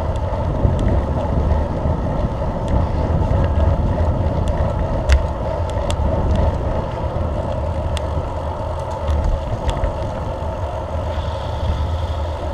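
Wind rushing over the microphone and the road noise of a bicycle in motion, a steady rumble with scattered sharp clicks.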